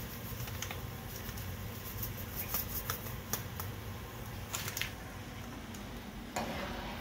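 Crinkling and rustling of a foil seasoning packet being handled and shaken out, in a string of light clicks and crackles. Near the end a spoon starts stirring in the pot.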